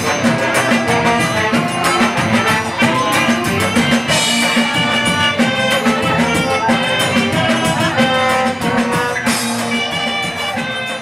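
Live band music: an upbeat number with percussion keeping a fast, even beat under melodic lines.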